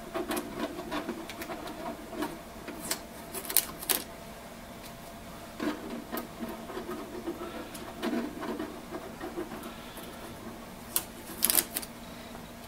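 Shipping tape being peeled off the plastic case of a document scanner, with crackling and scattered sharp clicks, the loudest cluster near the end and another a little after three seconds in.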